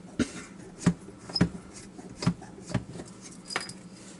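Sharp metal clicks and knocks at irregular spacing, about one every half second, as a small bench vise is wound in to clamp a tiny padlock.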